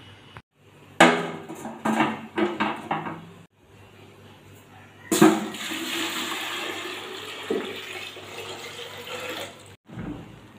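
Water poured from a plastic tub into a metal pot, a steady splashing pour lasting about four seconds. Before it come a few knocks and clatters of metal.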